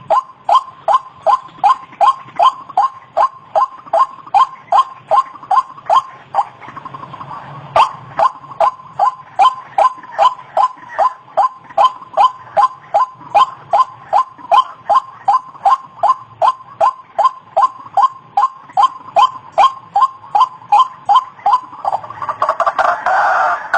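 White-breasted waterhen calling: a fast, steady series of short falling notes, about three a second. Near the end a different, denser call comes in over it.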